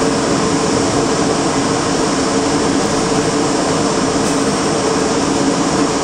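A New York City subway train standing at a station platform, its onboard equipment giving a steady whirring hum: two low steady tones over an even whoosh.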